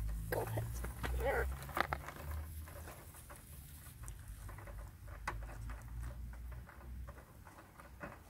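Goats biting and crunching whole raw carrots: a run of crisp snapping clicks, busiest in the first two seconds, over a low rumble.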